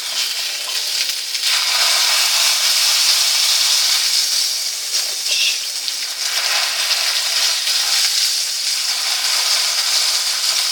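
Hamburger patty and onions frying in a pan, the fat sizzling steadily with a dense hiss that grows a little louder about a second and a half in.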